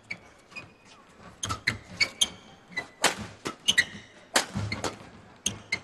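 Badminton rally: a quick exchange of sharp racket-on-shuttlecock hits, several a second at times, mixed with short squeaks of court shoes on the mat.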